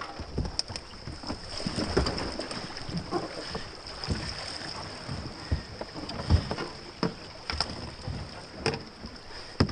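A whitewater kayak and paddle bumping and scraping against rock and branches at the river's edge: irregular knocks and rubs, some sharp, over the river's steady background.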